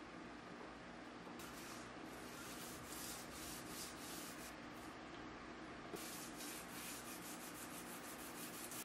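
Hand sanding a forged W2 steel knife blade with sandpaper on a block: faint, quick back-and-forth rasping strokes, about three a second, in two runs with a short pause between.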